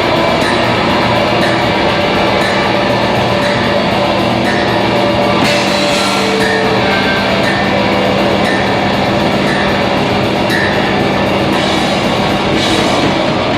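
A metal band playing live: a loud, dense wall of distorted guitar with one long held low note.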